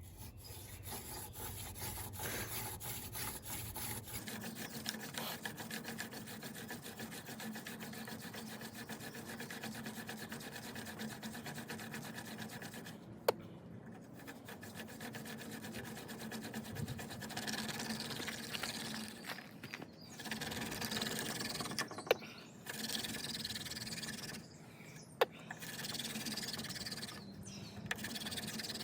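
Hand drill: a dry horseweed spindle spun back and forth between the palms, its tip grinding in a fireboard wood that is too hard for the job, a continuous rasping rub broken by several short pauses and a few sharp clicks.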